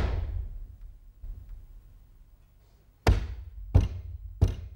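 The boom of a heavy wooden trunk lid just slammed shut, fading away over about a second. About three seconds in come three loud knocks on the wooden trunk, about two-thirds of a second apart, each with a deep thud.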